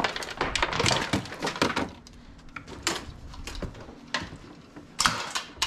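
Assorted used household items clattering and knocking as they are rummaged through and moved in a box, with a burst of clatter in the first two seconds and a few separate sharp knocks after.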